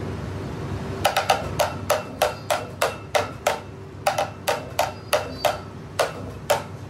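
A quick series of sharp knocks, about three a second and somewhat uneven, starting about a second in and stopping shortly before the end, over a steady machine hum.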